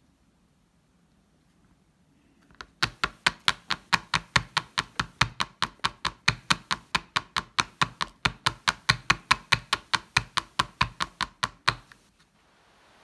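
A clear plastic chocolate mould full of melted milk chocolate is rapped quickly and evenly against the tabletop, about five sharp knocks a second. The knocking starts about three seconds in and runs for some nine seconds. The tapping settles and levels the chocolate and brings air bubbles out of it.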